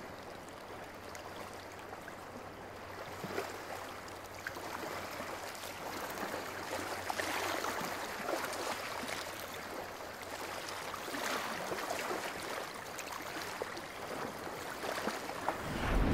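Faint water ambience, a steady wash like running or lapping water that swells and eases gently every few seconds. A low rumble rises in right at the end.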